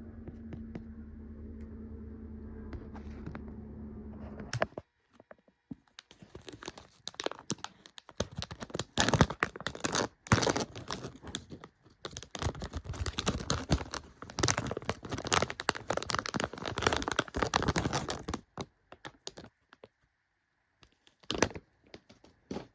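A low steady hum that stops abruptly about four and a half seconds in, then plastic blind-bag packaging being torn open and crinkled in quick irregular crackles for about twelve seconds, followed by a few last crinkles near the end.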